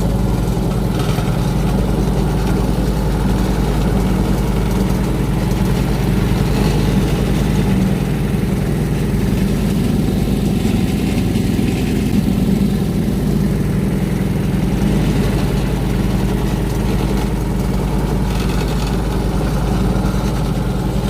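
An engine running steadily at a constant speed, with a low, even throb that does not change.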